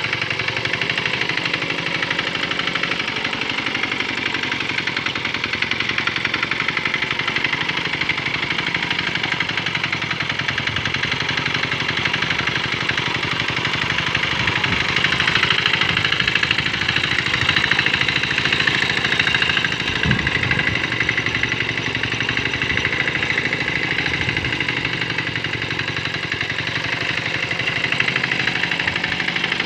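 Small single-cylinder diesel engine of a Quick Capung Metal hand tractor running steadily, a little louder for a few seconds around the middle.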